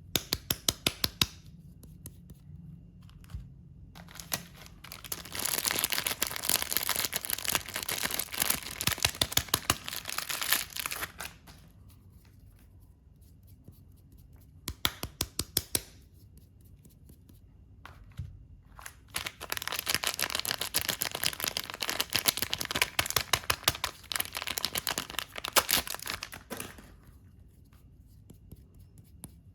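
Wrapping being torn and crinkled off bars of soap: two long stretches of crackling, rustling tearing, with short runs of sharp crinkly clicks between them.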